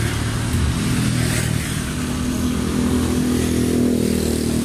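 Motorcycle engine running on the move, its note becoming clearer and steadier in the second half.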